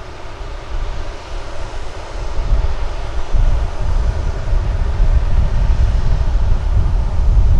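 KC-135R Stratotanker's CFM F108 turbofan engines running on the ground, a steady jet roar. A deep rumble swells about two and a half seconds in and stays loud.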